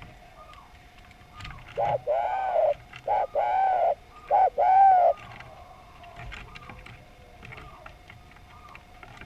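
Spotted dove (derkuku) cooing: three two-part coos in a row, each a short note followed by a longer note that rises and falls in pitch. Fainter calls and a thin steady tone sound softly in the background.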